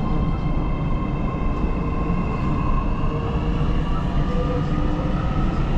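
Metro train running, heard from inside the carriage: a steady loud rumble with a motor whine that slowly rises in pitch.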